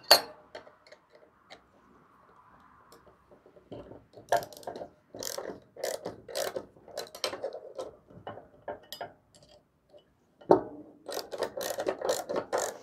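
Hand ratchet clicking in quick runs as bolts are tightened on a steel air-cleaner band clamp and bracket, in two bursts with a pause between.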